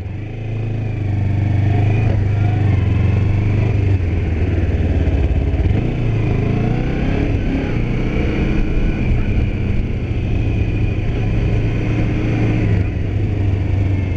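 2008 Kawasaki Ninja 250R's parallel-twin engine running as the bike is ridden, getting louder about a second in as it pulls away, then holding a fairly steady note.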